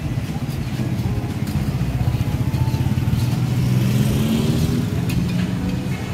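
A motor vehicle engine running close by, steady, its pitch drifting up a little about three seconds in.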